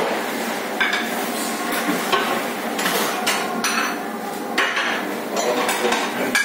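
Ceramic soup bowls clattering and a metal ladle knocking against a steel soup pot as soup is dished out, a sharp clink roughly every second over steady kitchen noise.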